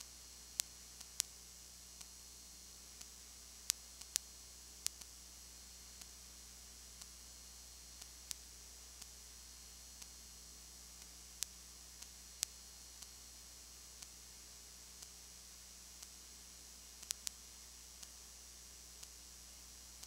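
Low electrical hum and faint hiss with no game sound, broken by sharp clicks: faint ones about once a second and a few louder ones at irregular moments.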